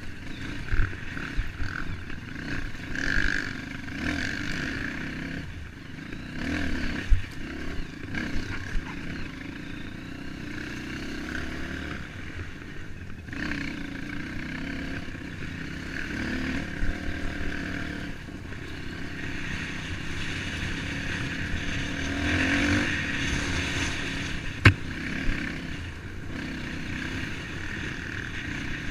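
Trail motorcycle engine running on a rough dirt trail, its pitch rising and falling with the throttle, with clatter and a few sharp knocks from the bike over the ground.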